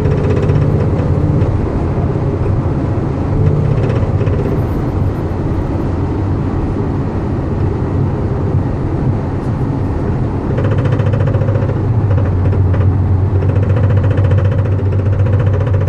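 Porsche 911 engine running steadily, its note shifting and growing a little louder about two-thirds of the way in. The owner hears a weird noise in it.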